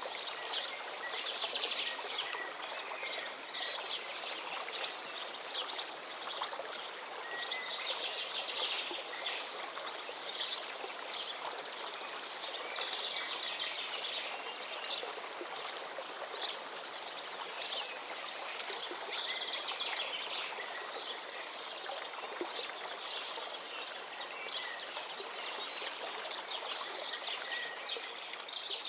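River water flowing steadily, with birds chirping in quick runs that come and go every few seconds over the rush of the water.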